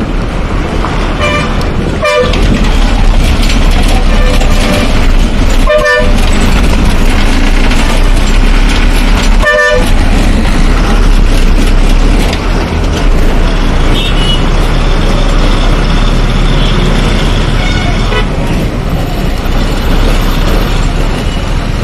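Bus engine and road noise heard from inside the bus's cabin as it moves off, with a horn giving three short honks about two, six and nine and a half seconds in.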